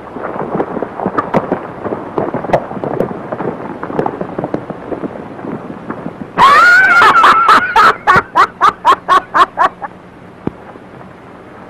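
Horses galloping off, hooves clattering unevenly on hard ground. About six seconds in, two men break into loud laughter, a long 'ha-ha' of about four pulses a second that dies away.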